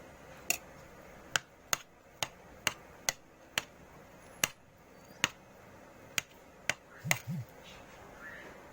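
Eating sounds: about a dozen sharp, separate clicks at uneven intervals, with a brief low hum near the end.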